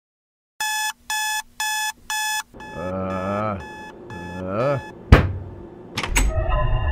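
Digital alarm clock beeping four times, about two beeps a second, as the sleeper is woken. A man groans twice, then there is a sharp thump, a quick double click, and a low musical drone starts near the end.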